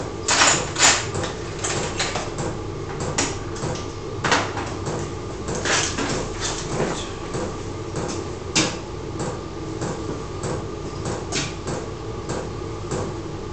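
Irregular clicks and knocks of tools being handled, such as a drill bit being swapped, over a steady hum.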